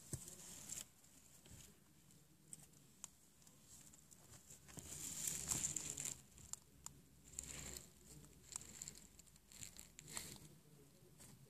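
Faint rustling and crinkling of hay bedding in a pet mouse cage, with scattered light clicks, loudest about five seconds in.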